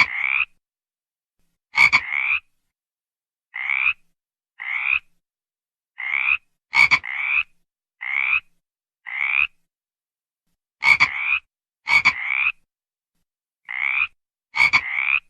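A frog calling over and over: short, rasping croaks about one a second, some in quick pairs, each with a slight upward sweep in pitch, several opening with a sharp click.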